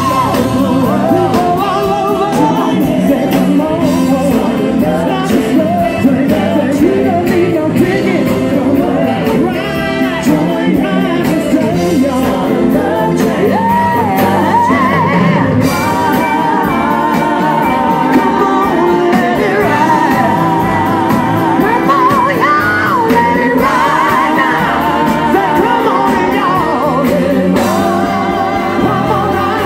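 Live soul band playing while a line of several singers sings together into microphones, with drums and saxophone in the band.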